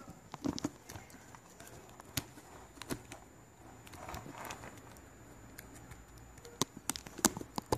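Scattered light clicks and taps of handling, with a short rustle midway and a cluster of clicks near the end, as a wired earphone plug is fitted into a basic keypad feature phone.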